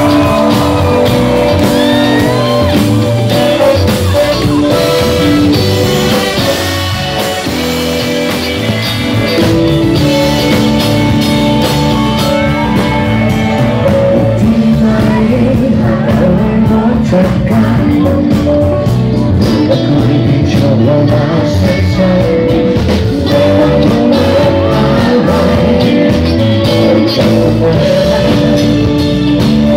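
Live band playing a song: sung vocals over electric guitars, bass guitar and drums, loud and continuous.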